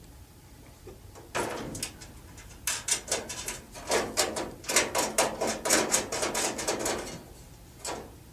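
Metal range-hood brackets and screws being handled: a run of short scrapes and rattles, several a second, starting about a second in and easing off near the end.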